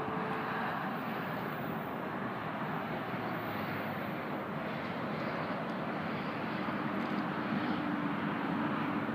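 Steady distant vehicle rumble, with a low engine drone coming up and growing slightly louder near the end.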